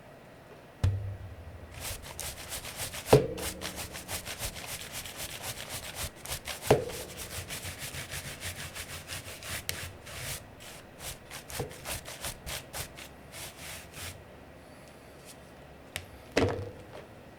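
A brush scrubbing rapidly back and forth over a mechanical keyboard with its keycaps off, in quick scratchy strokes, broken by a few sharp knocks that ring briefly. The loudest knock comes about three seconds in and another near the end.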